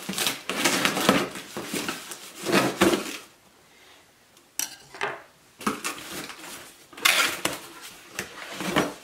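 A knife slitting the packing tape on a cardboard box, scraping and rasping, then after a short pause about three seconds in, the cardboard flaps being pulled open and packaging rustling and crackling as hands reach inside.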